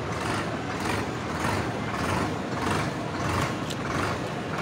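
Tractor engines running as tractors drive along the road, heard from a moving vehicle in the convoy.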